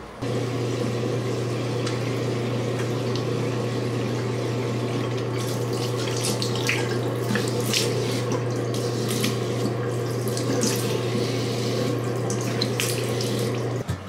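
Bathroom sink tap running steadily with a low hum, and from about five seconds in water splashing as a face is rinsed under it.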